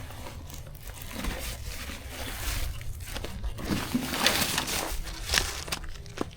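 Irregular crinkling and crunching, a series of short rustles and crackles at uneven intervals.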